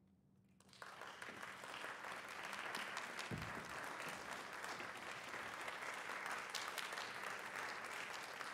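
Audience applauding, breaking out about a second in after a brief hush and building to steady clapping. A dull low thump sounds about three seconds in.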